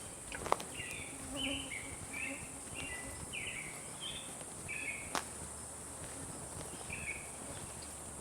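Steady high-pitched insect drone, like crickets, with a run of short chirping calls in the first few seconds and another near the end, and a couple of sharp clicks.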